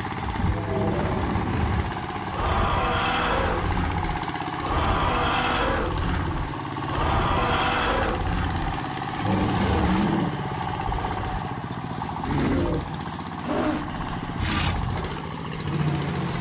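Motor of a homemade mini toy tractor running steadily as it drives along pulling a loaded trailer.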